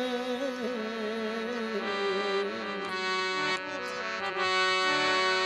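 Harmonium-led Punjabi devotional folk music. A male voice holds and ornaments a long wavering note for about the first two and a half seconds. After that the harmonium carries on alone with steady sustained chords, with a few light taps near the middle.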